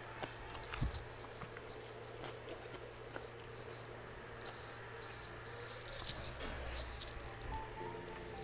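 Close-miked eating sounds: wet chewing and smacking of a mouthful of spicy beef rib meat, coming in irregular bursts.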